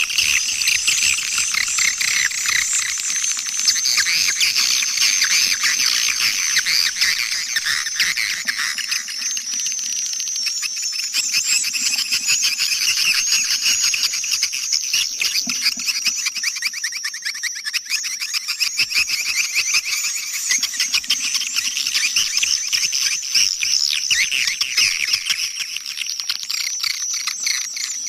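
Swiftlet lure call: a dense, continuous chatter of rapid high-pitched chirps and twitters, with a thin steady high tone running under it. It is the call sound played from swiftlet houses to draw the birds in.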